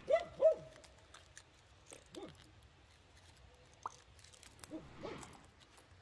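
A dog giving two short barks in quick succession at the start, then a few fainter yips.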